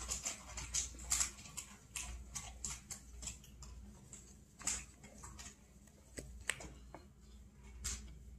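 Wooden spoon stirring thick pancake batter in a mixing bowl: soft, irregular clicks and taps of the spoon against the bowl.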